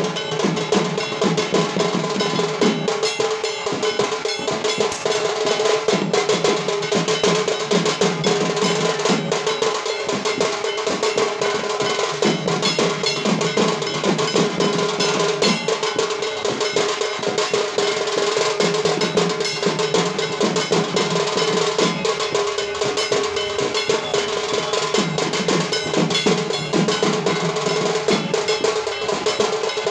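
Dhak drums beaten in a fast, continuous rhythm with a kansor (bell-metal gong) struck along with them, giving a constant metallic clang over the drumming. Heavier low drum phrases come and go every few seconds.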